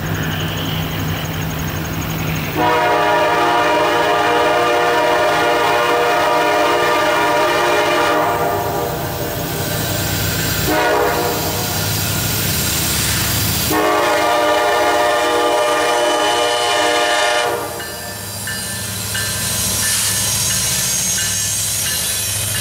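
Kansas City Southern EMD SD70ACe locomotive's air horn sounding for a grade crossing: a long blast of about five seconds, a short blast, then a final long blast of several seconds, over the low rumble of the diesel engines. Near the end the locomotives pass close by with engine and wheel noise.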